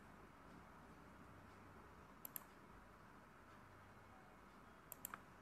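Computer mouse button clicking against near-silent room tone: two quick clicks about two seconds in and three more in a quick run near the end.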